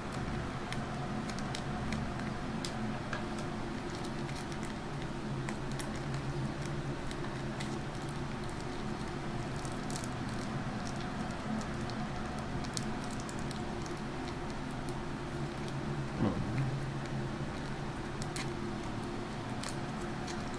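Thin clear plastic packet crinkling and crackling in the hands as it is worked open, a scatter of small irregular crackles. A steady low hum runs underneath.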